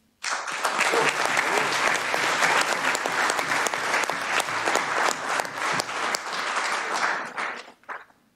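Applause from a room of people, breaking out suddenly just after the start, holding steady for about seven seconds, then dying away near the end.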